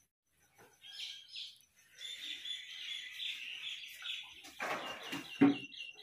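Small birds chirping and chattering steadily. Near the end comes a burst of fabric rustling as a heavy sequinned dress is flung out and dropped onto a bed, with a thump as it lands.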